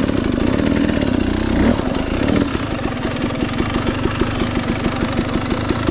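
300cc two-stroke dirt bike engine running at low revs with even, rapid firing pulses. It gets a short rise in throttle about two seconds in.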